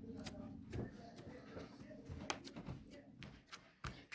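Scattered small clicks, ticks and rustles of hands handling slime-making materials, with faint voices in the background.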